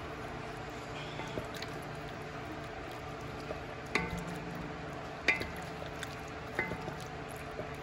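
A wooden spoon stirring tomato-and-broth braising liquid in an enamelled cast-iron Dutch oven, a wet sloshing over a steady background. The spoon knocks sharply against the pot three times in the second half.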